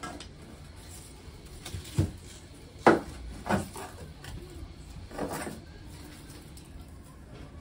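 A few sharp knocks followed by a longer rustling clatter as a rolled reed screen is handled and knocked against a wooden deck and wall: a knock about two seconds in, a louder one and another close after it, then a drawn-out rattle past halfway.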